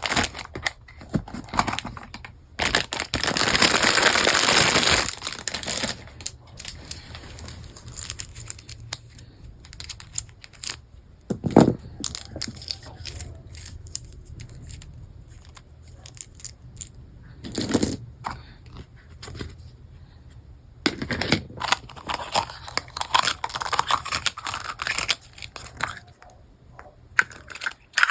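Plastic packaging being crinkled and torn open, with a long loud tearing rush a few seconds in, then scattered rustling and a few sharp knocks of plastic pieces being handled.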